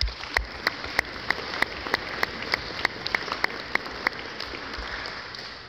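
Audience applauding, with one person's sharp claps close by standing out at about three a second. The close claps stop about four seconds in and the applause then dies away.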